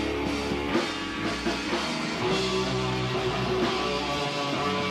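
Rock band playing live, with guitar and a drum kit.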